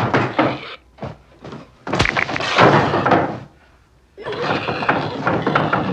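A sudden heavy blow about two seconds in, a sledgehammer striking a man's head, followed by about a second and a half of scraping, clattering noise. After a brief lull, a busier stretch of noisy sound follows.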